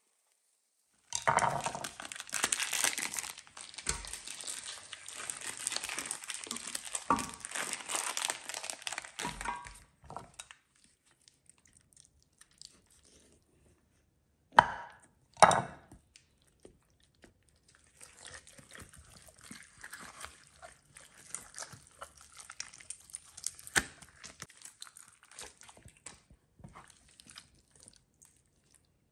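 Crinkling and rustling for several seconds, then two sharp knife chops about a second apart as a raw whole chicken is split open along the breastbone on a wooden cutting board, followed by quieter cutting and handling of the meat.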